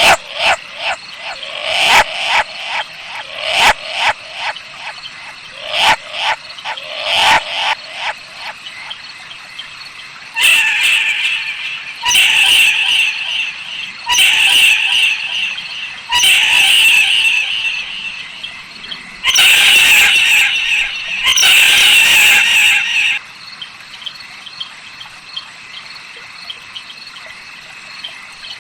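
Owl calls: a run of short, rapid chattering calls, then six long, harsh screeches about one and a half seconds each, close together in the middle of the stretch, before it goes quieter.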